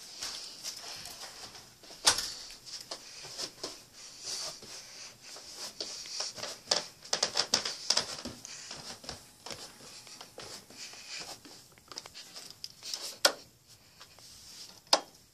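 Close rustling and rubbing handling noise with scattered sharp clicks and knocks, the loudest about two seconds in and twice near the end.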